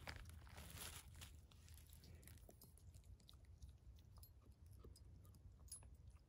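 Faint crunching and rustling of dry conifer needles and forest litter as a hand digs a lobster mushroom out of the ground, in the first second or so; then near silence with a few faint ticks.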